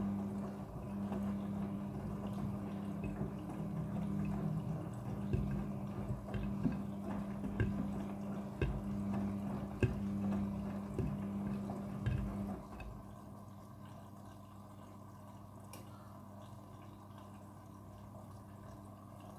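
Midea front-loading washing machine running with water sloshing and dripping inside over a steady hum. The hum stops about two-thirds of the way through, leaving fainter water sounds and small ticks.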